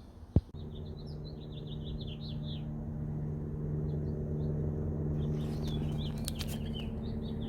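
Small birds chirping in short bursts over a steady low hum that slowly grows louder, with a sharp click about half a second in.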